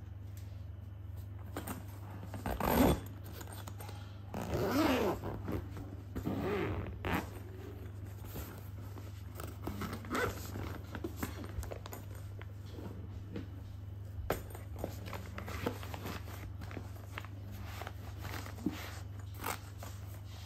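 Zipper of an insulated fabric lunch bag being pulled open in a few separate rasping strokes, followed by small ticks and rustles of the bag being handled. A steady low hum runs underneath.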